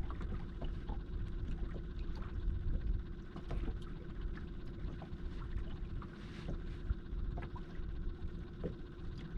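Wind buffeting the microphone and small waves lapping and slapping against a small fishing boat's hull, with scattered light splashes over a steady low hum.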